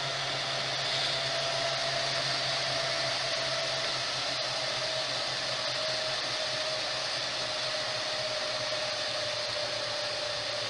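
Cooling fans of a Dell PowerEdge R720 server running at high speed while it boots, a steady rushing whir with a whine that drifts slightly lower.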